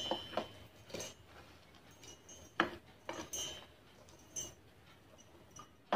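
Steel spoon clinking and scraping against a steel plate and a steel mixer-grinder jar while roasted whole spices are scooped into the jar: about six separate sharp clinks, some with a short high metallic ring.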